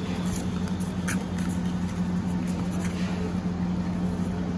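A steady low machine hum, with a few faint scratches and rustles from kittens clambering against the sides of a cardboard box.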